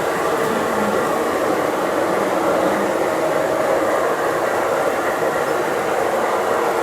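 LGB G-scale model train running on the garden railway track, a steady rolling noise.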